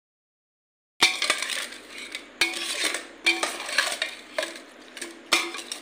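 A steel spoon scrapes and clinks against a stainless steel pot as it is stirred, in repeated strokes, some of which leave a brief metallic ring. The first second is silent.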